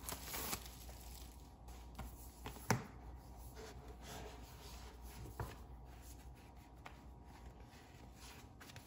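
Faint rustling and sliding of paper, card and plastic as a CD album's photobook and card sleeves are handled and its pages turned, with a few light knocks, the sharpest about two and a half seconds in.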